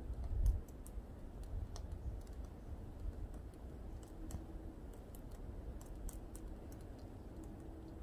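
Woodpecker pecking at a tree: light, irregular taps, some bunched in quick clusters, not a drumming roll. A low rumble of wind on the microphone at the very start.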